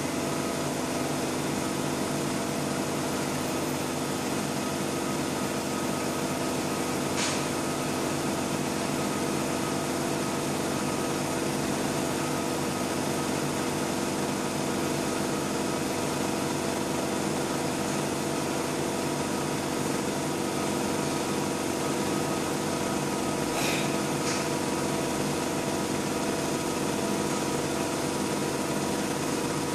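20 W Raycus fiber laser marking machine running steadily while it engraves a logo black into stainless steel: a constant hum with several steady tones over a hiss. Two brief clicks, about seven seconds in and again near twenty-four seconds.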